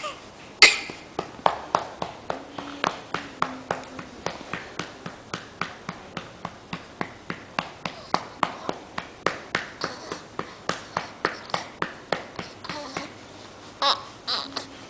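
A hand patting a baby's back to bring up a burp: steady, even taps about three a second. A short, louder sound comes near the end.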